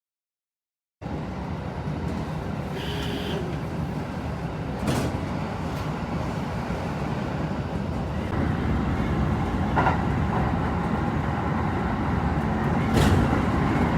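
Kintetsu 80000 series 'Hinotori' limited express electric train: a steady low rumble of running noise with a few sharp clicks, getting slightly louder toward the end.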